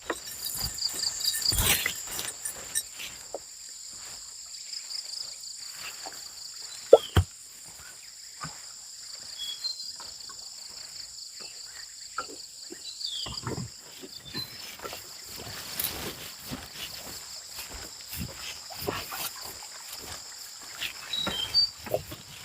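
Insects chirring steadily in two high-pitched bands, the lower one pulsing in the first few seconds. Over them come scattered light knocks and rustles of people walking through undergrowth, with one sharper knock about seven seconds in.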